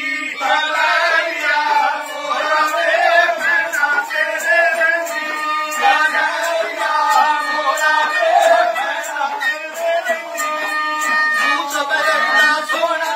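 Punjabi folk music played on algoza twin flutes and a bowed sarangi: a wavering melody over a steady drone, with a regular clicking beat.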